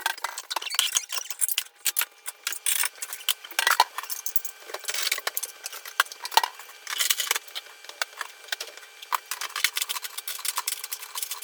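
Dishes, cutlery and other kitchen items clattering and clinking in quick succession: a dense run of sharp clicks and knocks, thin-sounding with no bass.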